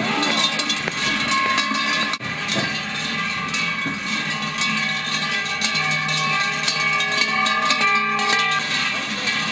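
Large Krampus cowbells worn on the costume belt, clanging and ringing irregularly as the Krampus moves, with many overlapping ringing tones.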